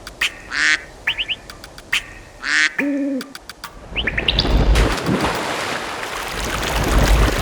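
Birds chirping in short rising calls. There are two brief hissing bursts in the first few seconds and a short low-pitched call about three seconds in. From about four seconds in, a louder steady rushing noise with low rumble takes over.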